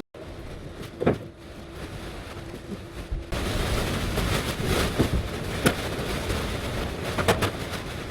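Work-site background noise with a few sharp knocks or taps scattered through it, including two in quick succession near the end.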